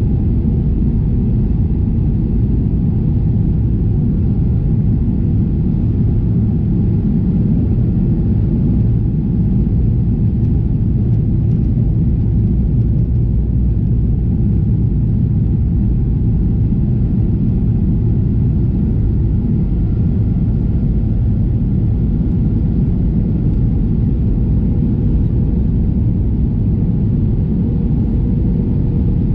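Steady low cabin rumble of a Boeing 737-800 on approach, heard from a window seat over the wing: its CFM56-7B engines and the airflow over the fuselage, with a faint steady whine on top.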